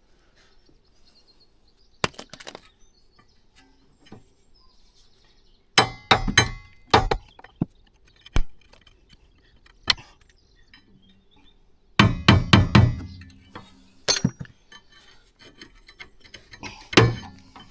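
Metal brake parts and tools clinking and knocking as the rear brake pads are worked out of the caliper bracket. There are clusters of several sharp knocks about a third of the way in and again past the middle, with single clinks between.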